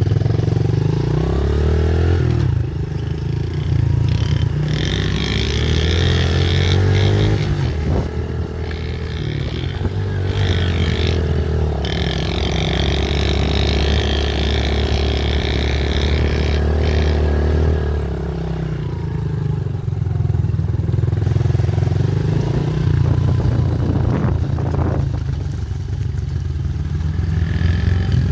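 A child's small motorbike running as it is ridden across grass, its motor note rising and falling with the throttle over a heavy low rumble.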